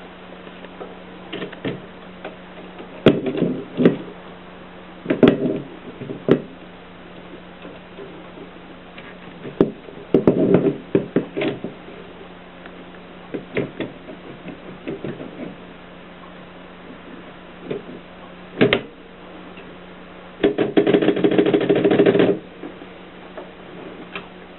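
Mercedes typewriter being worked: scattered mechanical clacks and clunks, some in quick clusters, and a dense clattering run of about two seconds near the end, over a steady low hum.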